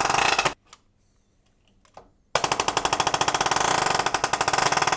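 Bostitch PN50-E pneumatic palm nailer hammering a nail into a timber board with a rapid rattle of blows, stopping about half a second in, then starting again a couple of seconds later and running on.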